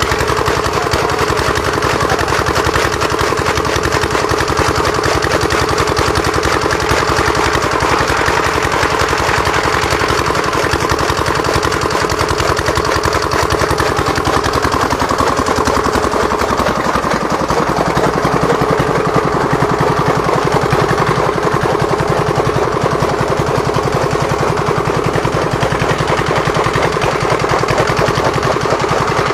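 Small diesel engine running steadily under load with a fast, even knocking beat, driving a flywheel chaff cutter as bundles of green fodder are fed in and chopped.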